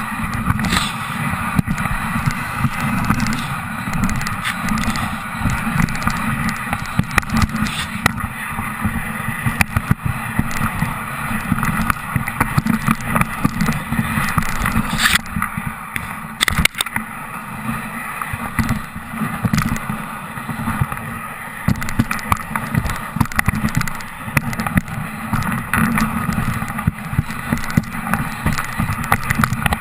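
Dog sled moving over a packed snow trail: a continuous scraping hiss of the runners over a low, jolting rumble from the sled and its camera mount, with a couple of sharp knocks about halfway through.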